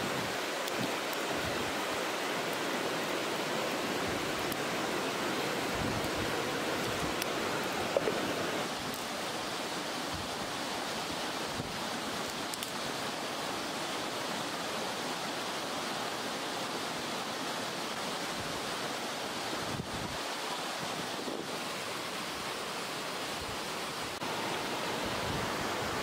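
Steady rushing of a shallow flowing stream, with one brief knock about eight seconds in.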